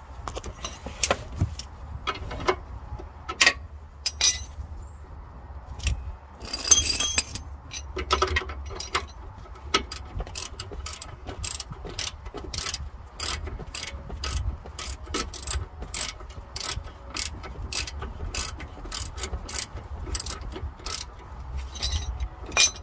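Ratchet wrench clicking as the lower nut of a car's front stabiliser drop link is tightened, the stud held with an Allen key. Irregular clicks and a louder metal clank come first, then steady clicking about twice a second.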